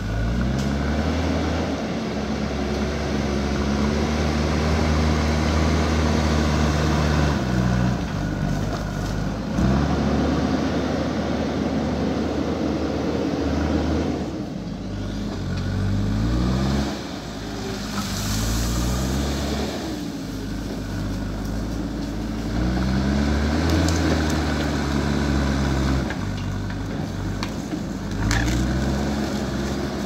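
JCB backhoe loader's diesel engine working under load, running steadily at first and then revving up and down several times as the machine pushes dirt and reverses.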